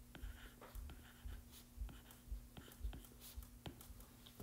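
Faint, irregular taps and scratches of a stylus writing by hand on an iPad's glass screen, over a faint steady hum.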